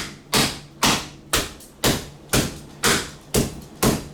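Rolling pin beating a pork loin flat through plastic wrap on a cutting board: a steady run of sharp smacks, about two a second.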